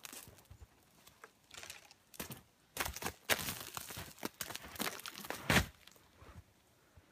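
Footsteps crunching in packed snow, an irregular series of short crunches, louder near the middle as the walker passes close by.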